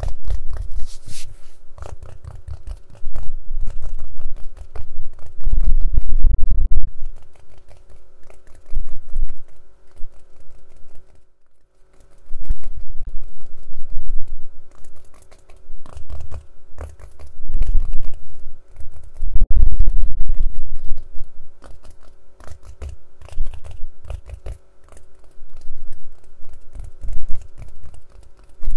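Fast, irregular tapping, clicking and scratching on a case, with heavier handling thuds now and then and a brief pause about eleven seconds in.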